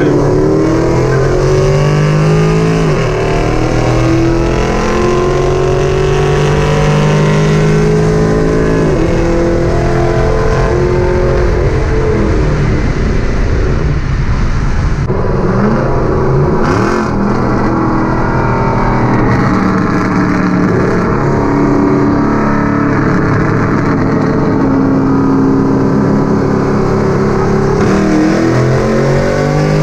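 Car engine and exhaust heard from inside the cabin while driving, the engine note holding steady and then swinging in pitch several times as the car accelerates and changes speed.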